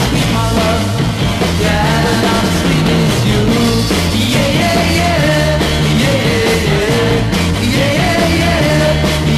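A 1960s garage rock band recording playing, with a steady beat and a wavering lead melody over it.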